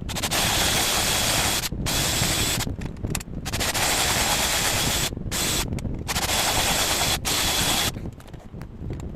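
An electric tool running in repeated bursts of one to two seconds with brief stops between them: a loud hiss with a steady high whine over it.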